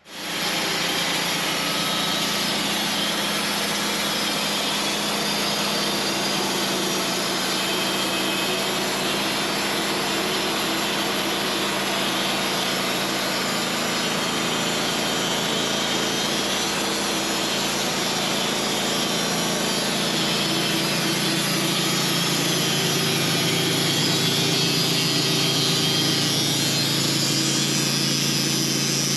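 Sawmill running and sawing through a honey locust log: a steady motor hum under the constant noise of the blade cutting the wood.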